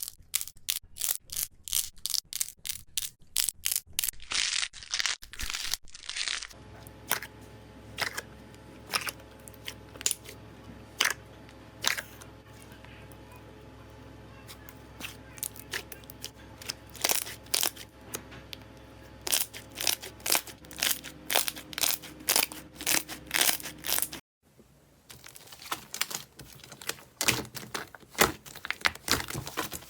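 Slime being poked and pressed by hand: a fast run of sharp clicks and crackles as air pockets pop, with a couple of longer squishes in between. The sound changes abruptly twice as one short clip gives way to the next.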